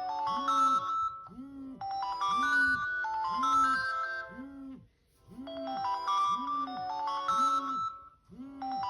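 A smartphone ringtone playing a looping melody: short runs of bright notes stepping upward over a bouncing bass note about twice a second. The phrase repeats about every three and a half seconds, with a brief dip between repeats about one, five and eight and a half seconds in.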